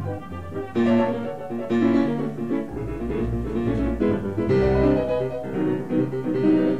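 Piano music as a background soundtrack: notes struck in short phrases over low bass notes.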